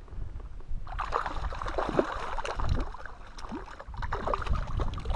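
Wild brown trout splashing at the surface of shallow lake water close in, a run of quick irregular splashes starting about a second in.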